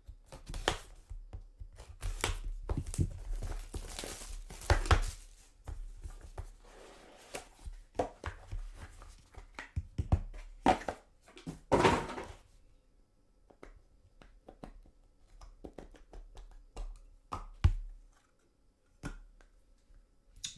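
A sealed box of trading cards being opened and handled: wrapper tearing and crinkling, with cardboard thunks and scrapes. After about twelve seconds it thins to light, scattered clicks and taps.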